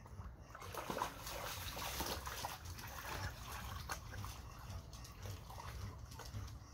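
Muddy puddle water splashing and sloshing as a corgi wades and shoves its face through it, busiest in the first few seconds and easing off toward the end.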